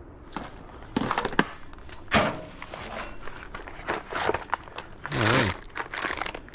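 Scattered clicks and knocks of hand tools and parts being handled during engine work, with a longer scraping, rustling noise about five seconds in.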